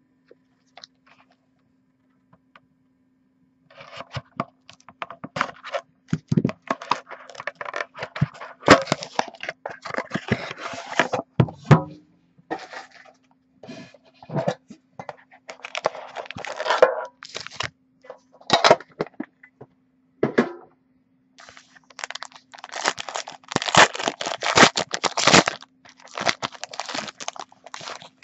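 Plastic wrapping on a trading card box crinkling and tearing as it is stripped off, mixed with scrapes and clicks of the cardboard box being handled and opened. It starts after about four seconds of quiet and comes in irregular stretches, over a faint steady electrical hum.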